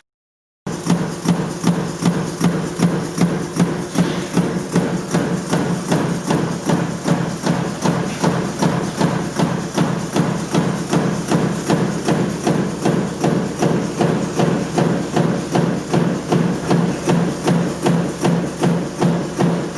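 Stamping press running in continuous cycles, its die striking about twice a second over a steady low hum.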